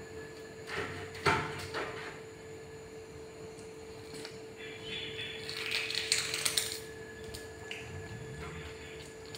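Scattered light knocks and scrapes on a tiled floor from a small monkey scampering about, with a sharp knock about a second in and a run of rustling scrapes past the middle, over a steady faint hum.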